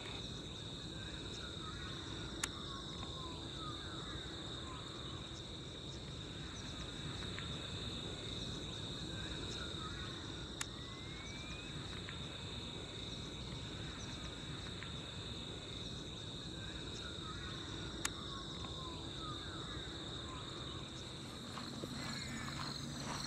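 Outdoor ambience of steady, high-pitched insect chirring, with faint bird calls repeating every few seconds and three sharp clicks.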